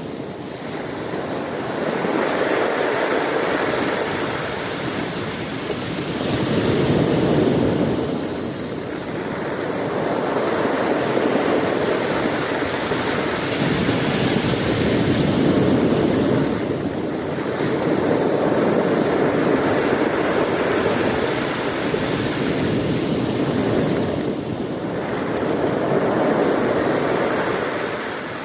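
Sea surf: waves breaking and washing in continuously, the rush swelling and easing every few seconds.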